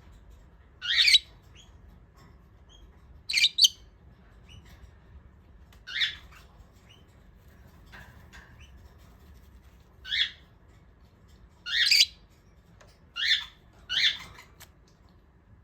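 A jumbo budgerigar giving about eight short, sharp chirps at irregular intervals, two of them a quick pair about three and a half seconds in.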